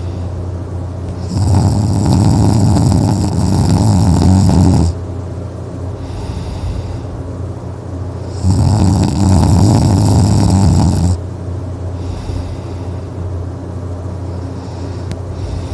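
A person snoring in sleep: two long, loud snores about seven seconds apart, with quieter breaths between them, over a steady low hum.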